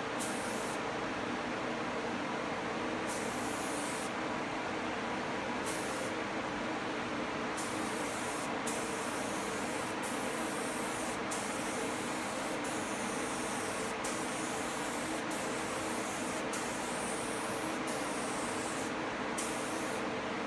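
Air spray gun hissing as it sprays stain in passes, triggered in short bursts at first and then in long, nearly continuous strokes with brief breaks. Underneath, the steady rush of the spray-booth exhaust fan.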